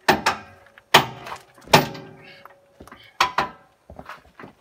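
Sharp metal clanks, each with a short ring: four loud ones in the first three and a half seconds and lighter knocks after. They come from working a trailer's weight-distribution hitch, its spring bars and chains, with a steel lever bar.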